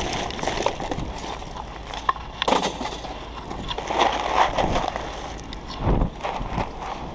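Irregular knocks, clinks and crunching, like loose debris and parts being handled and shifted.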